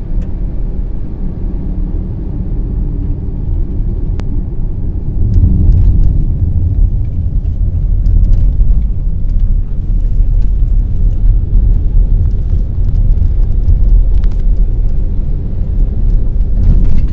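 Steady low rumble of a car driving along a road, heard from the moving vehicle, growing louder about five seconds in, with a few faint clicks.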